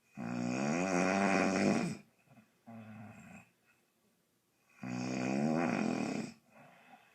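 A woman snoring loudly in her sleep: two long, loud snores about four and a half seconds apart, each followed by a shorter, softer breath sound.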